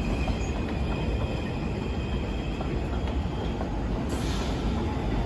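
New York City subway N train rolling along an elevated track, a steady rumble of steel wheels on the rails, with a faint steady high hum above it.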